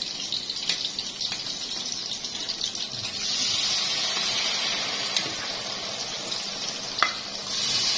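Fish-and-flour batter deep-frying in hot oil, a steady sizzle that grows louder about three seconds in as more batter is spooned into the oil. A few light knocks sound over it, the loudest near the end.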